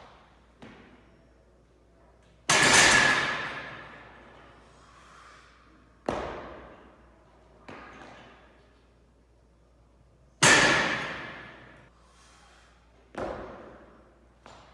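Loaded barbells and weight plates hitting a gym floor: a series of thuds, two loud ones about eight seconds apart that ring on with a metallic tone for over a second, and several softer knocks in between.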